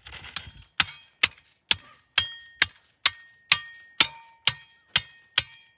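Steel hand tamper striking crushed rock over and over, about two blows a second, each with a short metallic ring. The gravel base is being compacted for a concrete pad.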